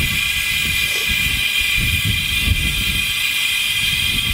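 Butane refill canister hissing steadily as it is pressed nozzle-down onto a plastic soda bottle, discharging butane into it, with a low, uneven rumble underneath.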